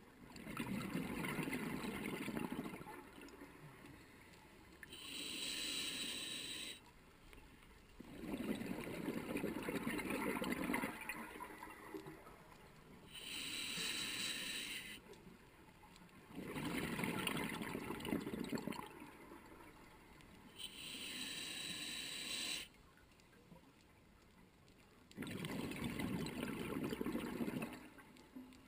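Scuba diver breathing through a regulator in a slow, even cycle: a high hiss of air on each inhale, then a bubbling rumble as the exhaled air escapes, about four breaths in all.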